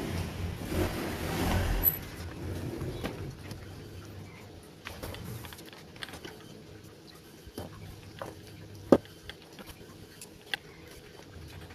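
Hands working in an RC monster truck's chassis during a servo swap. Handling rustles for about the first two seconds, then scattered small clicks and taps of plastic and metal parts, the sharpest about nine seconds in and another about ten and a half seconds in.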